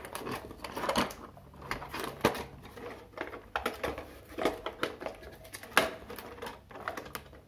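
A plastic action figure being worked out of its packaging tray and wire twist-ties by hand: irregular clicks, taps and light rattling of plastic.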